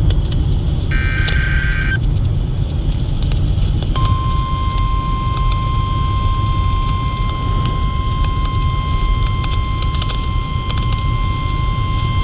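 NOAA Weather Radio alert received over a weather radio with a constant low hum and static. About a second in comes a one-second warbling burst of the SAME digital header. After a short gap, the steady 1050 Hz warning alarm tone starts about four seconds in and holds to the end, signalling an urgent warning, here a Special Marine Warning.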